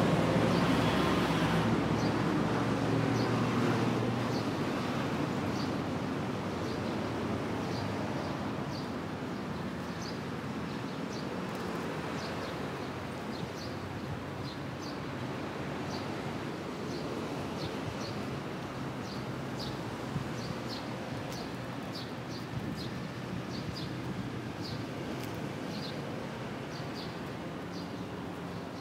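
Outdoor traffic hum: a vehicle's engine is loudest at the start and fades away over the first several seconds, leaving a steady low background noise. Short high bird chirps repeat on and off throughout.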